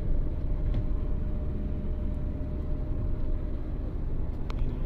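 Steady low road and engine rumble heard inside the cabin of a moving car, with a couple of faint clicks.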